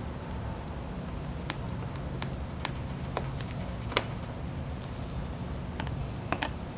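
Light clicks and taps from small parts and a tool being handled while a smartphone is taken apart: scattered single clicks, the sharpest about four seconds in and two close together near the end, over a steady low room hum.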